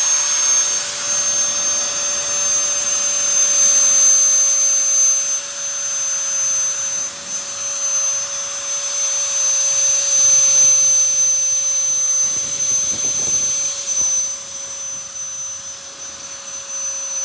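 Handheld electric turbo blower (BOOSTER turbo-fan) running flat out on its hidden fourth, most powerful speed: a steady high-pitched whine over rushing air.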